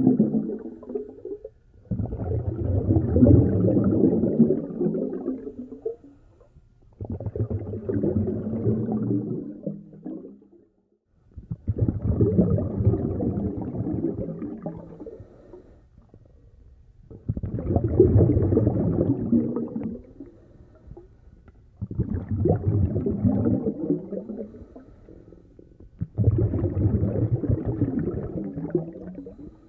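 A snorkeller's breathing through the snorkel, heard muffled and rumbling through the underwater camera: a rushing breath about every five seconds, each starting abruptly and fading away.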